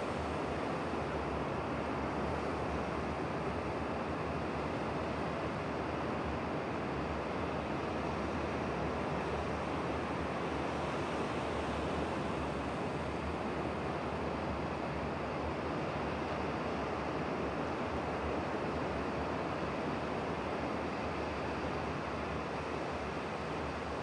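Sea surf heard as a steady, even rush, with no single wave break standing out.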